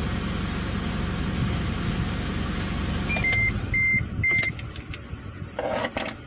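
Car engine idling, then switched off with the ignition: the rumble dies away about four seconds in. Just before it stops come three short, even electronic beeps, and near the end a brief cluster of clicks.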